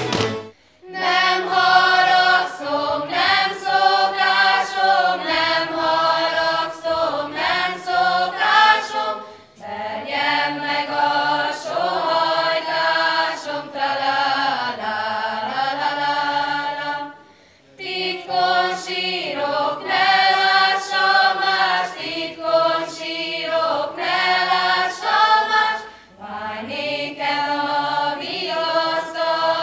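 A group of women and girls singing a folk song without accompaniment, in long phrases with short pauses between them. The singing starts about a second in.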